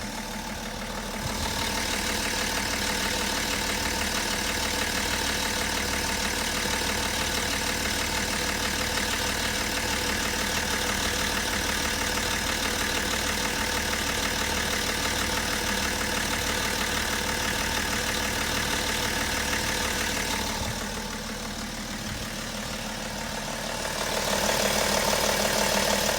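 BMW M57 straight-six diesel engine idling, with a faint knock that keeps time with the engine's rotation. The sound dips around 21 seconds in and is loudest near the end.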